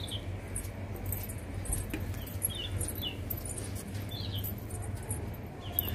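Small birds chirping: five or six short, high chirps spread through the few seconds, over a steady low hum.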